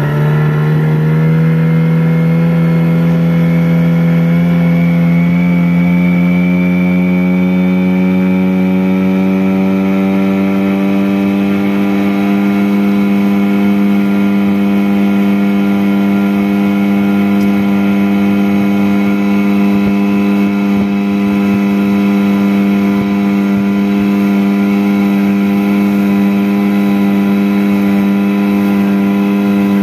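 Small two-stroke outboard motor running, its pitch rising over the first ten seconds or so and then holding steady.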